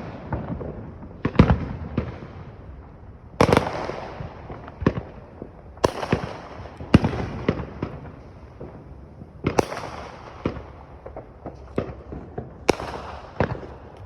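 Fireworks going off in all directions: irregular booming reports every second or two, some followed by crackling.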